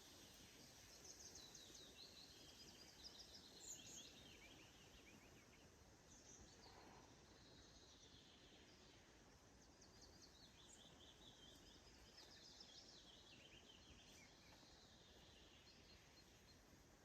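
Faint birdsong: songbirds singing quick trilled phrases of rapidly repeated high notes, one run in the first few seconds and another in the second half, over a steady low hiss of outdoor ambience.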